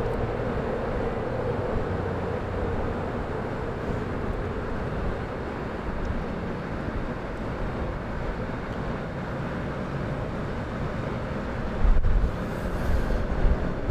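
Steady city ambience of traffic hum and wind noise on an open rooftop, with a louder low rumble about twelve seconds in.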